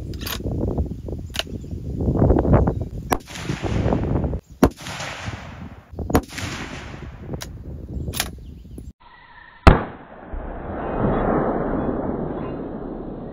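Rifle shots from a 6.5 Creedmoor Ruger American bolt-action rifle: a series of sharp cracks, each followed by a rolling rumble, the loudest about ten seconds in. Near the end the sound turns duller, a long rumble that swells and fades.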